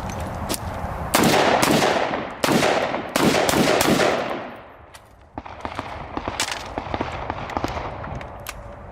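Springfield Saint Victor AR-15 pistol with a 10.5-inch barrel in 5.56/.223 firing about five shots in quick succession, each with a ringing echo, over roughly three seconds. The string then stops, followed by fainter sharp clicks and knocks. The stop is consistent with a feeding jam.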